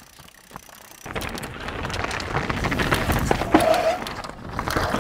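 A full-suspension mountain bike setting off and riding past on a dirt trail: a few small knocks as the rider gets on, then from about a second in the noise of tyres on dirt with rattling clicks swells as the bike passes close and fades near the end.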